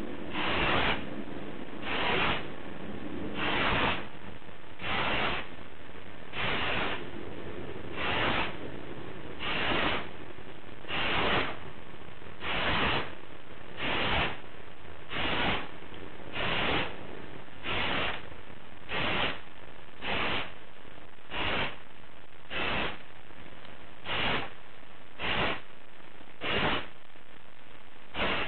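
Aerosol spray-paint can sprayed in short passes over a car body repair, laying down a coat of paint. Each hissing burst lasts about half a second and comes roughly every second and a half, over a steady background hiss.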